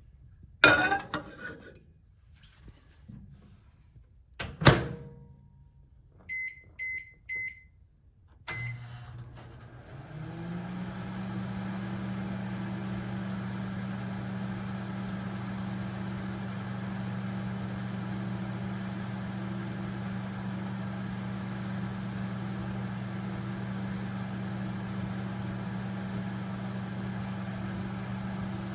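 RCA 900-watt countertop microwave oven: a clatter and then a sharp click of the door shutting, followed by four short keypad beeps. The oven then starts and runs with a steady low hum.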